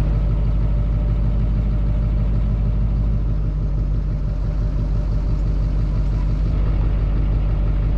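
A vehicle's engine running steadily, a low even hum that holds at one pitch throughout.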